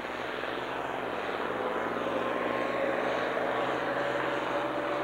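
Diesel engine of a farm stock pulling tractor running hard under full load as it drags a weight-transfer sled, growing louder as it comes closer, with a faint steady whine over the engine noise.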